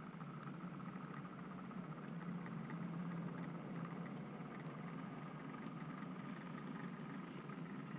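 OO gauge model train running slowly along the track: a steady, engine-like mechanical hum with faint clicks.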